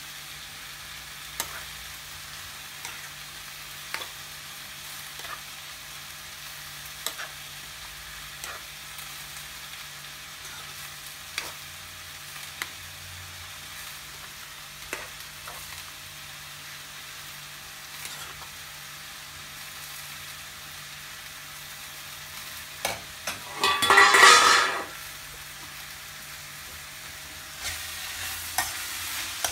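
A metal spoon stirring bubbling chicken tikka masala in a frying pan, clicking against the pan every second or two over a steady simmering hiss. Late on there is a loud burst about a second long. Near the end the sound changes to a pan of mushrooms, onions and peas being stirred as they fry.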